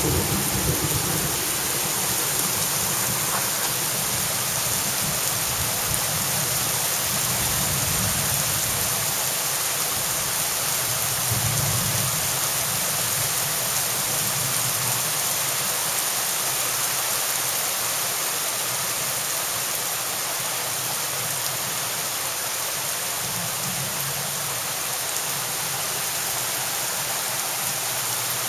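Heavy rain pouring onto a paved parking lot and parked cars, a dense, steady hiss that holds at one level throughout.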